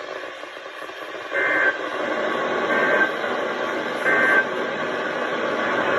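Three short bursts of warbling digital data tones, evenly spaced over a steady radio hiss. This is the Emergency Alert System SAME end-of-message (EOM) signal on a NOAA Weather Radio broadcast, marking the end of the warning.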